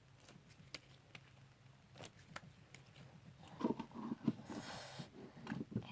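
Slime being squished and pulled in the hands: faint scattered wet clicks and small crackling pops, busier in the second half.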